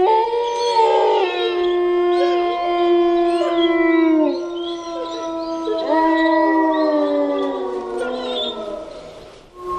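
Wolves howling in long, drawn-out notes, several voices overlapping at different pitches, some ending in a downward slide. One howl trails off shortly before the end and another begins.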